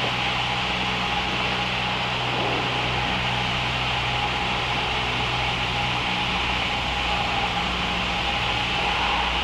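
Cabin noise of a small training plane in flight: the piston engine and propeller make a steady drone with rushing air noise, and the drone's low tone shifts about six seconds in.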